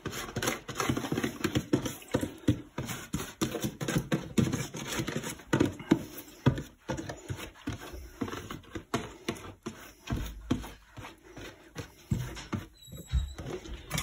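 Dried grass being tipped and picked out of a plastic tub into a stainless steel bowl: a steady run of crisp rustling with light taps and knocks of the plastic.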